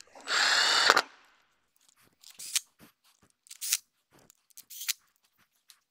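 Cordless drill-driver spinning a rocker cover bolt down for under a second near the start, its motor whining steadily. A few short, faint clicks and rustles follow as the tool and parts are handled.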